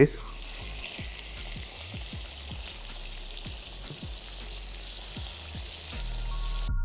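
Floured pork tenderloin medallions sizzling in hot oil in a frying pan, just laid in to fry: a steady hiss that cuts off abruptly near the end.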